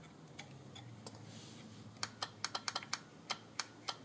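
An electric scooter's controller relay clicks about ten times in quick, irregular succession in the second half, switching in and out while one connection is missing.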